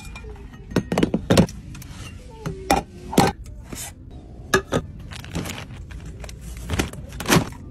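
Irregular sharp taps, clicks and knocks as merchandise is handled on store shelves: fingernails on a drink bottle, a bowl lifted off a stack, a packet on a peg hook. A low store hum runs underneath.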